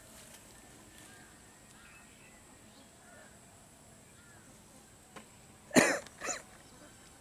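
Two loud coughs close to the microphone, about half a second apart near the end, over faint bird calls.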